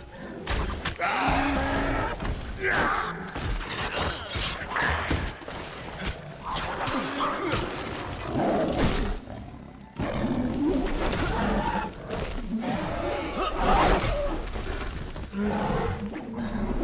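Film battle sound mix: a dense run of metallic clashes, crashes and thuds from swords and other weapons, with shouts and creature cries over music.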